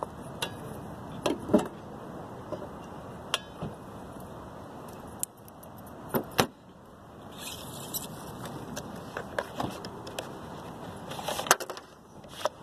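Plastic and metal clicks, taps and rattles of a windshield wiper blade being worked loose from its wiper arm by hand, with a cluster of quick clicks near the end.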